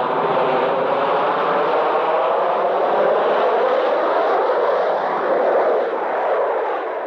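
Steady drone of aircraft engines, dense and unbroken, starting to die away at the very end.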